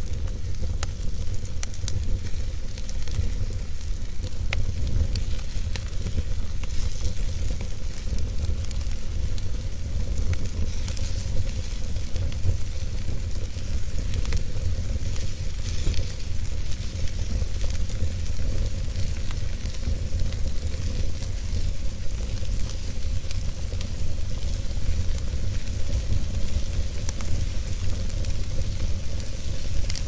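Wood fire burning in a fireplace: a steady hiss of flames with scattered sharp crackles and pops from the logs, over a constant low rumble.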